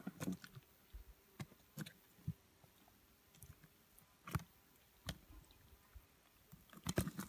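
Scattered soft wet squelches and small clicks of hands working inside a red deer's opened body cavity, freeing the diaphragm and stomach during field dressing. A few louder ones come about four seconds in and near the end.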